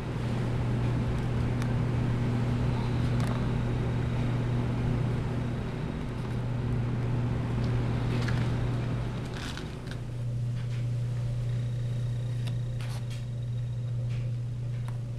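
A steady low mechanical hum, with a few light clicks scattered through it.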